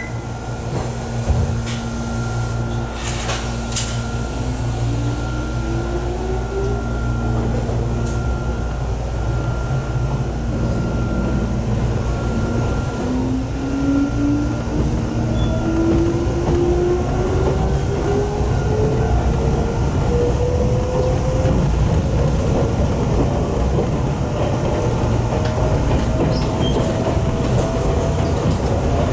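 Jomo Electric Railway 700 series (ex-Keio 3000 series) electric train running, heard from inside the car: a steady rumble of wheels on rail under a motor whine that rises steadily in pitch as the train gathers speed. There is a short hiss about three seconds in.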